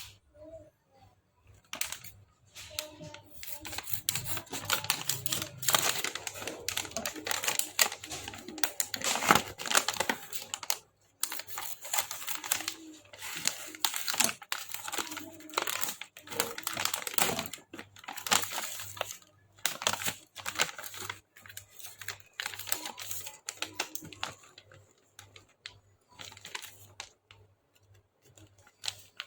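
Crinkling and rustling of handled material with many quick clicks and taps, busiest over the first two-thirds and thinning out near the end.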